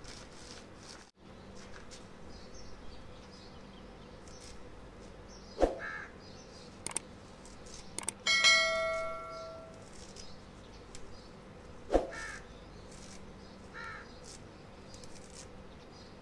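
Crows cawing a few times, a few seconds apart. Two sharp cracks come about 5.5 and 12 seconds in, and near the middle something metal is struck and rings on for over a second.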